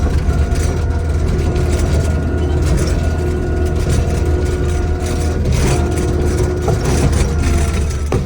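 Kubota diesel engine of a Takeuchi TL12 tracked compact loader running steadily, a low drone with steady whining tones over it and light rattling from the machine.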